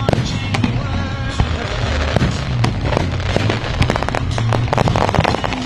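Aerial fireworks shells bursting and crackling in rapid succession, many sharp bangs one after another, with music playing along with them.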